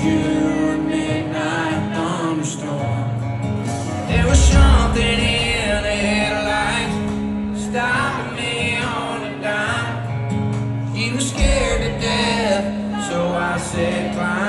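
A country band playing live, with guitars, bass and drums, and a man singing over them. Heavy low hits come about four seconds in and again near the end.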